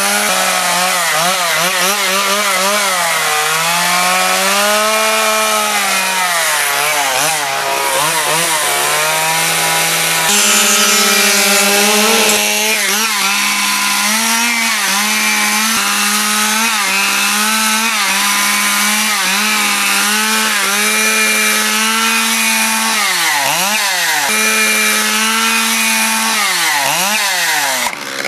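Stihl two-stroke chainsaw running at high revs while carving into a wooden post, its pitch sagging and recovering as the chain bites into the wood. Twice near the end the revs drop sharply and climb straight back up.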